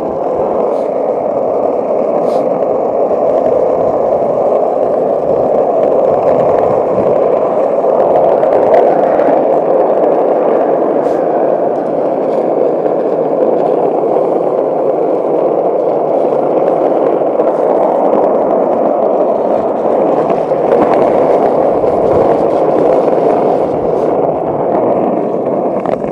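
Skateboard wheels rolling over rough asphalt: a loud, steady rumble with scattered small ticks and clacks from pebbles and pavement cracks.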